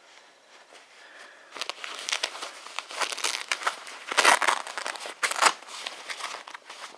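Rustling and crumpling of ripstop fabric as a hand handles a black combat uniform's trousers, in irregular bursts that start about a second and a half in and peak twice, around four and five seconds in.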